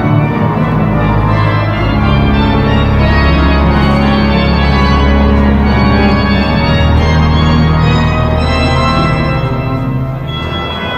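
The grand pipe organ of Saint-Eustache, the largest pipe organ in France, playing a recital: loud sustained chords over deep held pedal notes, the harmony shifting every few seconds. It eases off slightly near the end.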